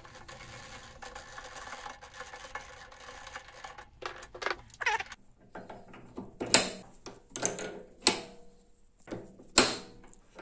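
Steel jaws and the chuck key of a metal lathe's three-jaw chuck clinking and knocking as the jaws are taken out and refitted, with a short metallic scrape about five seconds in. The two loudest knocks come about six and a half and nine and a half seconds in.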